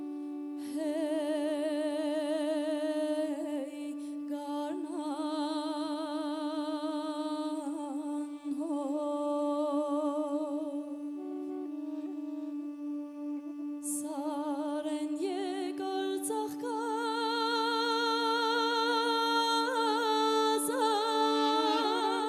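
Duduk playing a slow melody with wide vibrato in long phrases over a steady held drone note, the drone of Armenian duduk playing.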